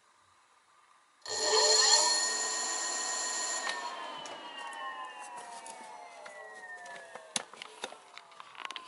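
Motor-driven siren switched on about a second in, winding up quickly to a steady loud wail, then winding down in a long, slowly falling glide as it coasts. Scattered sharp clicks throughout.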